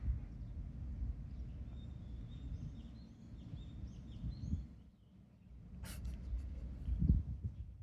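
Low rumbling noise throughout, with a small bird chirping a quick run of short, falling notes in the background in the middle, and a sharp click about six seconds in.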